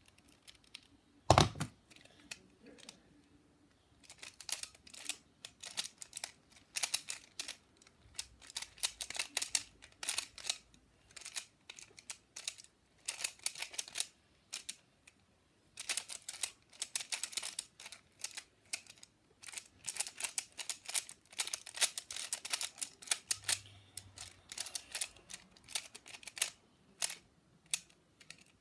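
Quick clusters of sharp plastic clicks and clacks from a Pyraminx pyramid puzzle being turned by hand, bursts of fast moves separated by brief pauses. A single louder knock about a second in.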